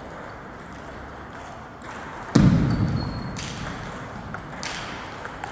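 Table tennis ball clicking off bats and table in a rally, a few sharp ticks, with a loud heavy thud about two seconds in that rings on briefly.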